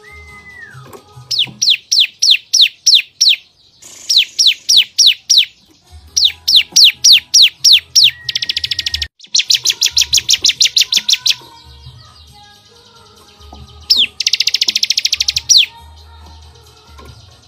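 Songbird masteran of cucak cungkok, canary and bar-winged prinia (ciblek) song. One held whistle drops in pitch at the start. Then come repeated volleys of sharp down-slurred whistled notes, about six a second, broken twice by a second or more of very fast buzzing trill, the first about halfway through and the second near the end.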